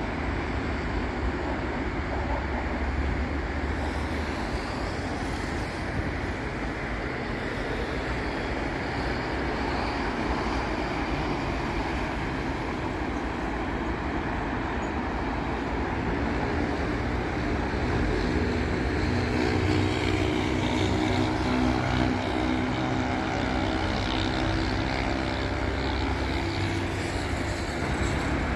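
Continuous road traffic on a busy city avenue: cars and heavier vehicles passing. In the second half the engine hum of a heavy vehicle grows louder and holds for several seconds before fading.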